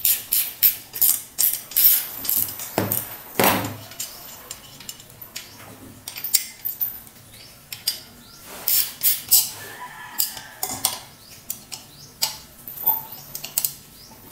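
Sharp metallic clicks and clinks in quick runs as the metal belt pulley of a car-wash plunger pump head is handled and turned by hand. There are a couple of duller knocks about three seconds in.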